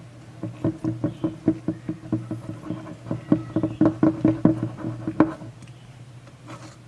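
Homemade toothpaste slime being squeezed and worked by hand, giving a quick, irregular run of soft wet clicks and pops that stops after about five seconds.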